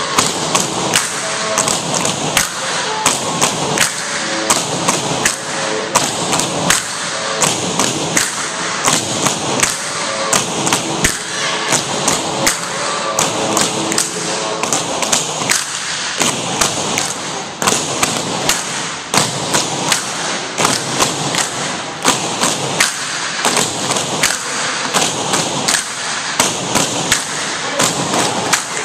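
Tinikling poles being struck on a wooden gym floor and knocked together in a quick, steady rhythm, with dancers' feet stepping between them.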